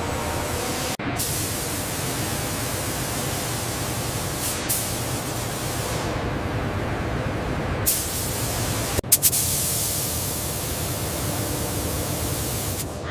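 Steady hiss of a paint spray gun spraying. It cuts out abruptly about a second in and again about nine seconds in, with a few sharp clicks just after the second cut.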